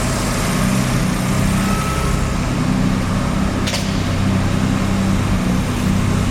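Mazda RX-7 FD's 13B twin-rotor rotary engine idling at a steady level, with a brief click about two-thirds of the way through. The owner reports a rough idle, very high CO and misfiring.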